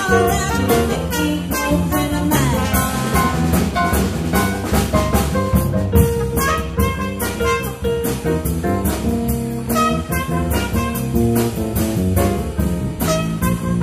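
Live band playing an instrumental stretch of a rock-and-roll number: a steady drum-kit beat under held brass notes, with a trumpet playing over it.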